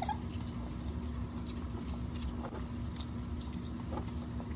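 Two people biting and chewing bread, with faint scattered mouth clicks and smacks over a steady low hum.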